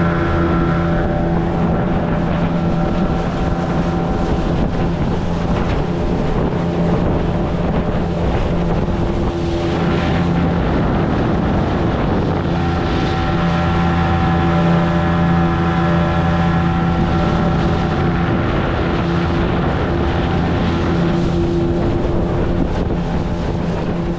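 Fishing boat's motor running steadily under way, with wind buffeting the microphone.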